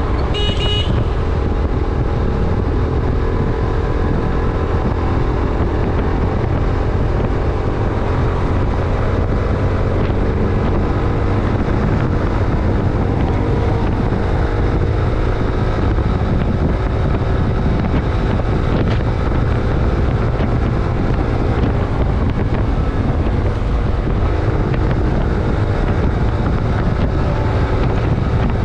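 Yamaha YBR 125G's single-cylinder four-stroke engine running steadily at riding speed, with wind buffeting the microphone. A vehicle horn sounds briefly about half a second in.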